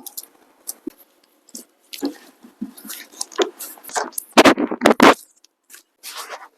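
Scraping, rustling and crunching as a patient's body is handled and shifted on a treatment table during a chiropractic manipulation, with scattered short clicks and a cluster of loud scrapes about four to five seconds in.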